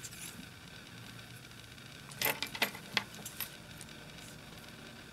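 Small metal fly-tying tools handled at the vise: a short cluster of light clicks and clinks about two seconds in, over a faint steady hum.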